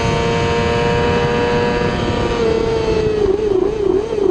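1000 cc-class race motorcycle engine held at high revs at full speed, heard from on board over heavy wind rush. About two and a half seconds in the pitch drops a little and then wavers up and down several times as the bike slows under braking.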